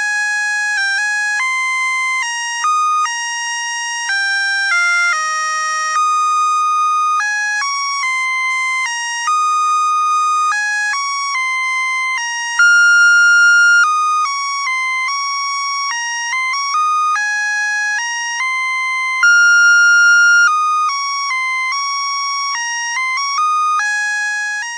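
Musical Christmas light string's sound chip playing a tinny electronic melody of beeping notes that step from one pitch to the next at a steady level.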